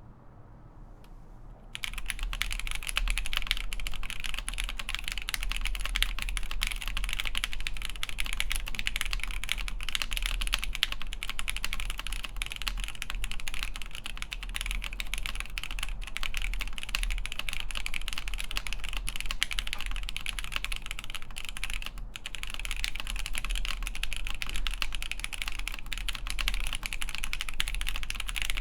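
Continuous typing on a Han's 80 ver. 2.1 (NEO 802) mechanical keyboard with lubed Alpaca v2 linear switches, an FR4 plate and Hammerworks CRP keycaps: a steady stream of keystrokes that starts about two seconds in, with a brief pause about three quarters of the way through.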